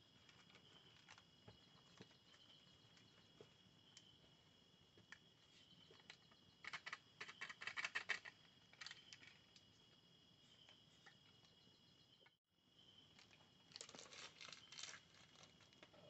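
Crickets and other night insects chirring steadily and faintly, broken by two bursts of sharp crackling and rustling clicks as a campfire is tended by hand: a longer, louder one about seven seconds in and a shorter one near the end. The sound drops out for an instant shortly before the second burst.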